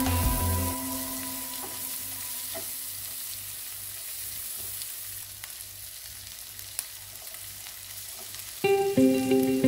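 Diced onion, green capsicum and carrot sizzling in oil in a non-stick frying pan while a wooden spatula stirs them. Background music stops within the first second and comes back near the end.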